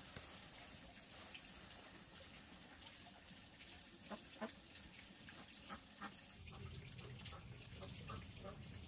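Faint, sparse clicks of a knife cutting through a raw green vegetable, several close together between about four and six seconds in, over a low background rumble that rises near the end.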